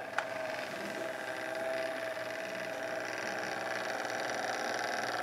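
Small electric motor in the base of a Discovery Kids tornado maker toy whirring steadily as it spins the water, with a single click of its button just after the start.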